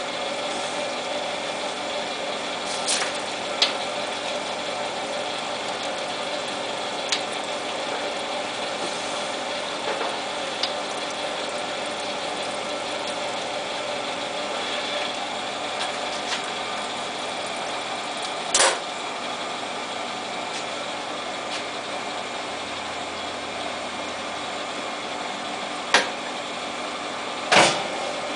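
Jet TL-25 turret lathe running steadily while machining 12L14 steel couplings, with a steady hum. Short sharp metallic clicks and knocks come every few seconds, the loudest a little past halfway and twice near the end.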